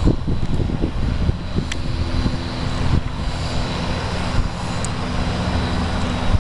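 Piston-engined light aircraft, a Piper PA-30 Twin Comanche and a single-engine low-wing plane, climbing away after takeoff: a continuous engine and propeller drone, with a steady held tone from about a second and a half in.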